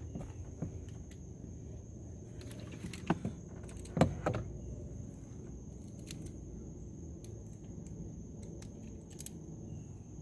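Scattered light clicks and knocks of an interior car door handle assembly being handled and fitted into the door after its release cable is hooked in, with a sharper knock about three seconds in and the loudest about four seconds in.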